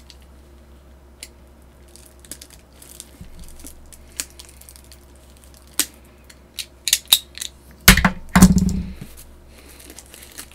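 Packaging of a boxed Blu-ray set being handled and opened: scattered light clicks and crinkles, then a cluster of louder knocks and a short rustle about eight seconds in.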